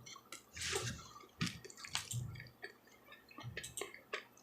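Wet mouth sounds of chewing close to the microphone: a string of short, irregular smacks and clicks.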